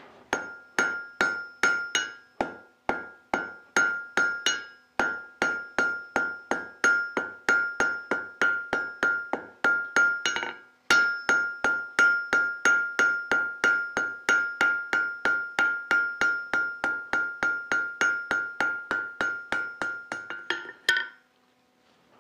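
Blacksmith's hammer striking a hot steel bar on an anvil, drawing its end out to a taper. Steady blows come about three a second, each with a bright metallic ring from the anvil. There is a brief pause about halfway, and the hammering stops near the end.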